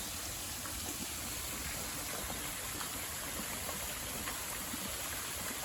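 Steady rushing of river water pouring over a fall.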